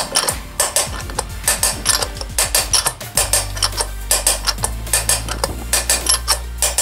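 Rapid, repeated metallic hammer blows on a socket extension held against the inner race of a Honda VF1000F's rear wheel bearing, driving the old bearing out of the hub.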